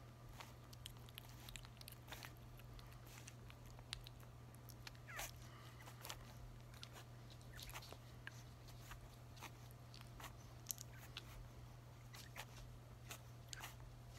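A 33-day-old merle puppy licking and smacking at soft mushy weaning food, faint wet mouth clicks scattered throughout, with a brief small squeak about five seconds in.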